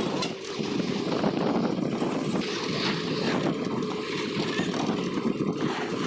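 Steady rumble of a moving bus heard from inside the passenger cabin: engine and road noise.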